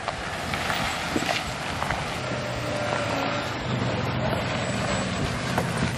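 A Jeep Grand Cherokee WJ's inline-six engine running as the SUV drives slowly over a dirt trail, its low engine note growing louder as it comes close, over a steady rush of outdoor noise.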